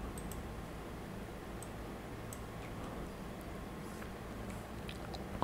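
Steady low background hum with a few faint, sharp clicks scattered through it.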